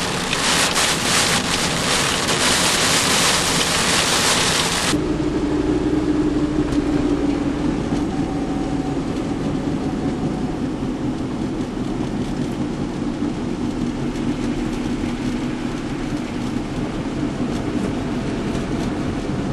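Heavy wind-driven rain beating on a moving car, a loud steady rush; about five seconds in it cuts to quieter car engine and road noise heard inside the cabin, with a steady low hum.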